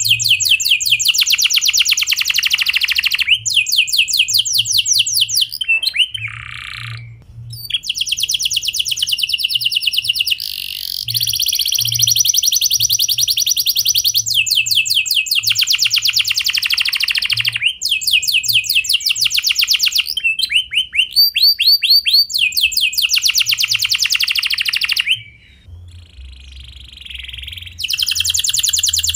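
Domestic canary singing a clear rolling song: fast trills of rapidly repeated notes, each run lasting a few seconds and changing speed and pitch from one phrase to the next, with short pauses between them and a quieter spell about three-quarters of the way through.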